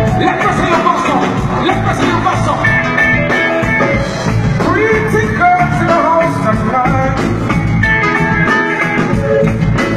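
Live band music with a singer's voice carrying the melody over the band.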